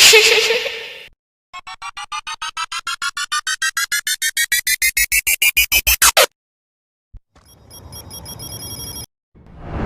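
A string of synthetic editing sound effects: a short burst fading out, then a rapid series of electronic beeps climbing steadily in pitch and loudness for about five seconds, then a steady electronic buzz with high tones, and a new swell starting at the end.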